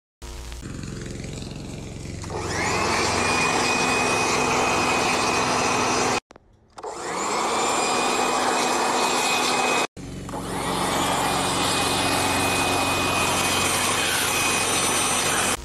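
Electric handheld leaf blower switched on, its motor winding up to a steady whine. It cuts out abruptly and starts again twice, about six and ten seconds in.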